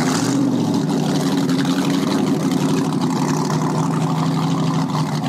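Exposed inboard engine of a small open motorboat running steadily at low speed, a loud, deep, even engine note through open exhaust pipes.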